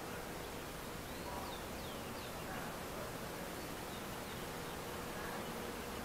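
Steady outdoor hiss with a faint steady hum, and a few faint, short, high falling chirps from birds about a second and a half in, with one more near the end.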